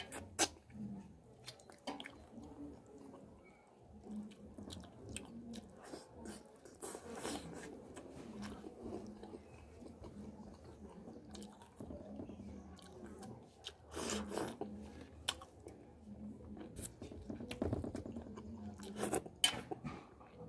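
Close-miked chewing of fish and rice, with many irregular wet lip smacks and mouth clicks and a few louder stretches of chewing.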